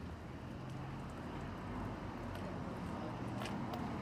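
Outdoor street ambience: a steady low rumble with a few faint clicks near the end.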